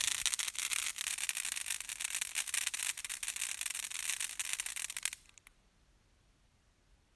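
Ground fountain firework spraying sparks: a steady hiss with rapid crackling that cuts off about five seconds in, followed by a couple of last crackles.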